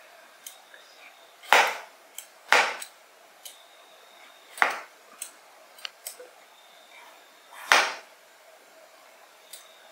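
Vegetable peeler scraping skin off a raw potato in four separate short rasping strokes, with faint clicks and taps between them.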